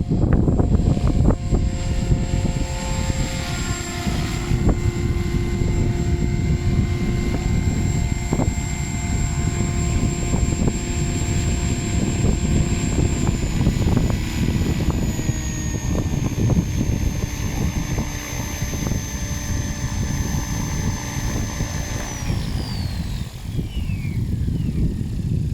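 Goblin 580 electric RC helicopter flying, its motor and rotor whine holding steady, then sliding steeply down in pitch near the end as it spools down. Heavy wind rumble on the microphone from strong gusty wind.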